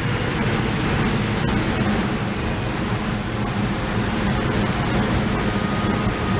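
SEPTA Silverliner electric multiple-unit commuter train running on the rails, with a high, thin wheel squeal for about two seconds in the middle.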